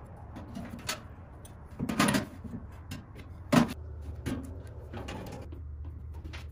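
Thin sheet metal being handled: a tab-cut chimney collar is knocked and pushed into the flue hole in the top of a sheet-metal stove box, giving light taps and clatter. There is a rattling burst about two seconds in and a sharp metal knock a little after halfway.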